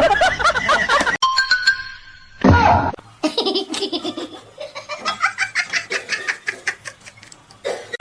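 Laughter in a quick run of short pulses, with music.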